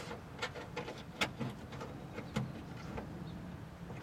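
A string of small, sharp clicks and taps at uneven intervals, about seven in all, from hand work on a car door lock cylinder and its retaining clip.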